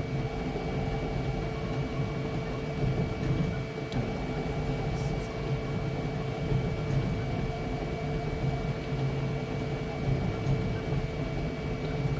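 Flashforge Adventurer 5M Pro 3D printer running mid-print: a steady machine hum with two thin steady tones over a low drone that wavers slightly as the print head moves.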